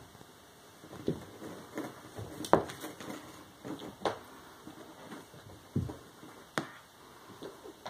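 Irregular thumps and taps of cats' paws and bodies on a wooden floor as a mother cat and her kittens play-fight and scamper, the loudest knock about two and a half seconds in.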